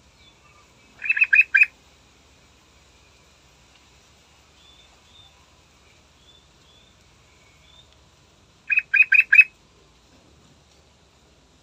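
Yellow-vented bulbul singing: two short phrases of about four quick notes each, one about a second in and one near the end.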